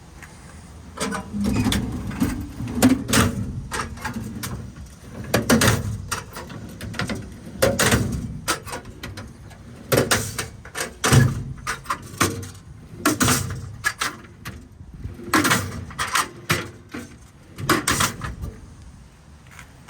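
Set of metal twist-lock service-body drawers being pulled open and pushed shut, one after another: sliding runs with rattles and clanks, about every two seconds.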